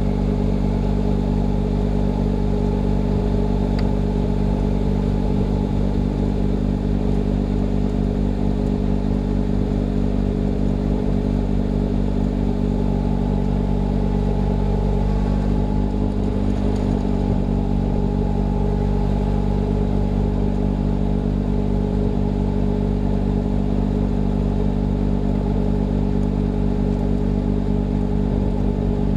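John Deere 6110R tractor's diesel engine running at a steady speed, driving a snow blower, a constant drone.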